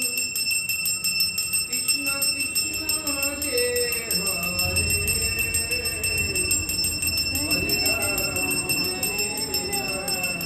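Brass puja hand bell rung rapidly and without a break for the aarti, a steady high ringing, with people's voices over it.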